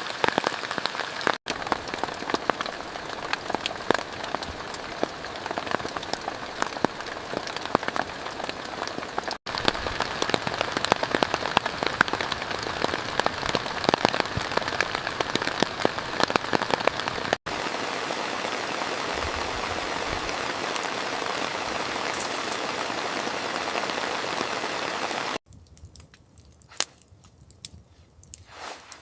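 Heavy rain falling, a dense steady patter of drops, broken by several abrupt cuts. Near the end the rain drops out suddenly, leaving a much quieter stretch with scattered clicks.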